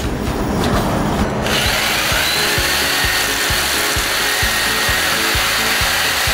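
Corded electric jigsaw cutting through 1-inch Schedule 40 PVC pipe. It starts about a second and a half in and then runs steadily, with a high whine over the noise of the blade.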